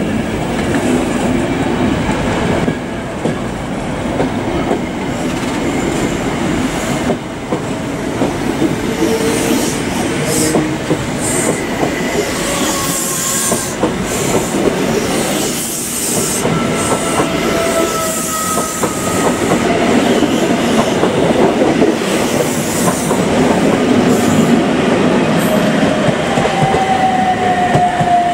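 A train running past at close range, its wheels clattering on the rails, with thin wheel squeals rising and fading now and then and one drawn out near the end.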